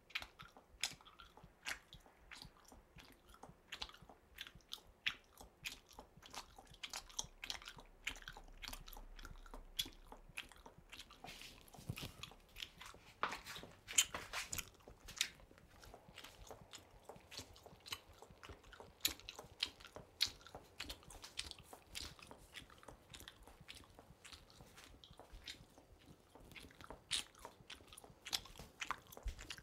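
Quiet, irregular sharp clicks and small cracks, scattered unevenly and clustering at times, with one sharper crack about halfway through.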